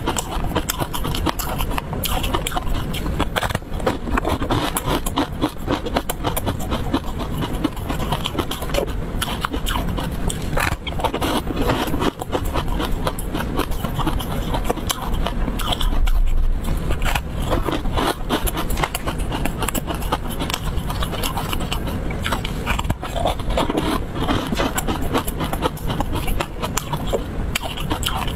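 Crunching and chewing of a crisp snack, tartary buckwheat snowflake crisp, as a dense unbroken run of crackles and small snaps, a little louder around the middle.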